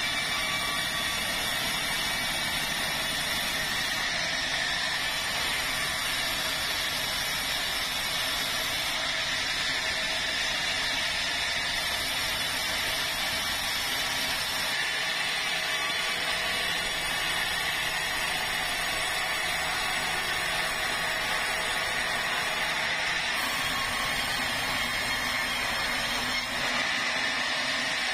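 Sawmill saw running steadily while sawing a large red meranti log into boards, with a constant high whine over mechanical noise; a low hum drops away near the end.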